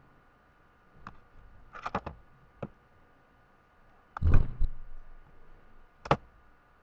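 A handful of sharp clicks and knocks: one about a second in, a quick cluster near two seconds, a louder, deeper thump a little after four seconds, and a last click near the end, over a faint steady hum.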